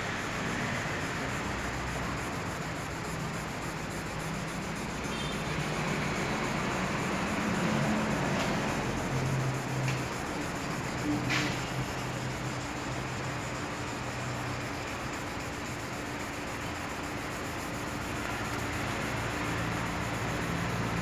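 Sandpaper rubbed back and forth by hand over a wet, painted steel motorcycle fuel tank, a steady scratchy hiss: wet-sanding the paint to take out scratches.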